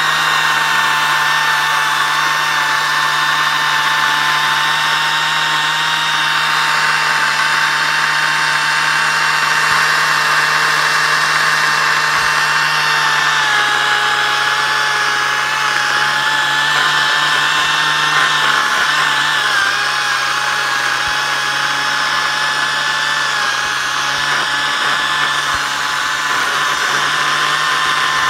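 Makita cordless electric chainsaw running steadily as it cuts into a birch log, giving a loud, even whine. Its pitch drops slightly twice along the way.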